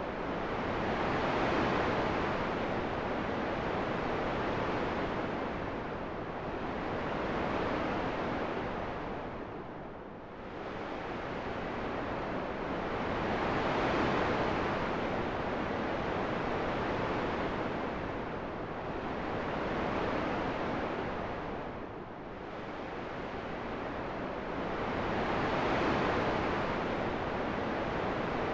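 Steady rushing wind that swells and fades in long, slow gusts, dipping briefly about every twelve seconds.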